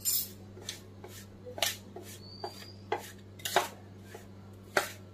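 A spoon clinking and scraping against a metal pan as the karanji filling is mixed: about six separate knocks, one of them leaving a short metallic ring.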